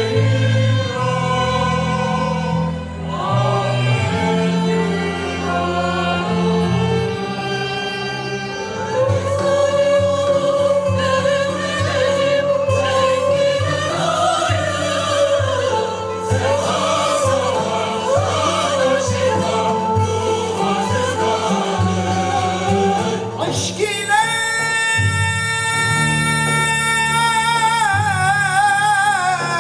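Live concert music: a string orchestra with violins and cello, joined by a mixed choir singing. About 24 seconds in it changes to a male solo singer holding long notes with strong vibrato over the orchestra.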